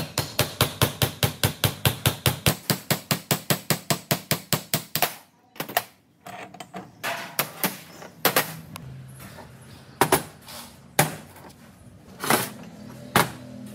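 Quick, even hammer blows on a steel drift, about five a second for some five seconds, knocking the wrist pin out of an engine piston to free the connecting rod. After that come single metallic knocks as the piston and rod are handled and set down on the steel bench.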